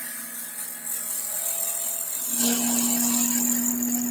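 Wood lathe running while a turning tool makes peel cuts into the spinning wooden blank: a steady motor hum with the hiss of the cut, which grows louder a little over two seconds in.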